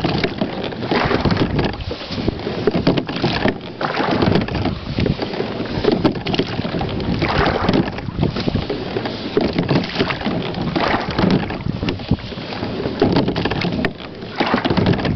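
A Whitehall Spirit Solo 14 slide-seat rowing boat under way, its carbon-fibre oars working through calm water at an easy stroke rate, with a surge of noise about every three seconds. Wind noise runs on the microphone throughout.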